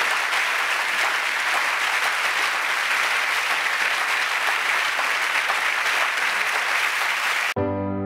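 Audience applauding steadily, a dense patter of many hands clapping. Near the end it cuts off suddenly and soft piano music begins.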